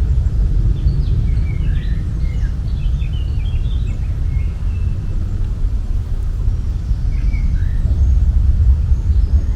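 Steady low outdoor rumble with birds chirping over it: a flurry of short chirps about one to three seconds in and a few more near the end.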